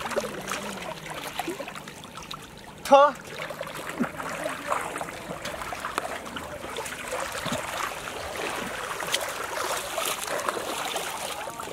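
Muddy water sloshing and splashing as several people wade and grope through it, with faint voices. About three seconds in a short, loud, wavering call rises above it.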